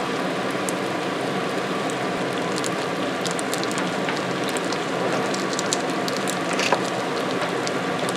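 Frozen potato-and-cheese pierogi sizzling in olive oil in a nonstick frying pan: a steady hiss with scattered crackles and pops, more of them in the second half.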